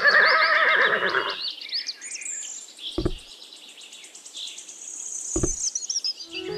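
A wavering animal call opens, lasting about a second and a half, over high bird chirping that runs throughout. Two short soft knocks come about three and five and a half seconds in, as plastic toy animals are set down.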